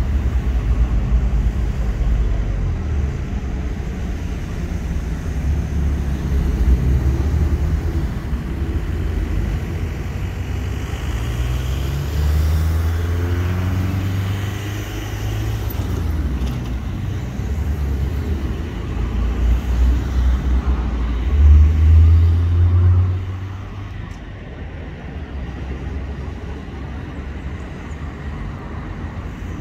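Steady low rumble of distant road and rail traffic heard in the open air, with an engine note that falls in pitch about halfway through. It swells loudest a little after two-thirds of the way in, then drops to a quieter hum.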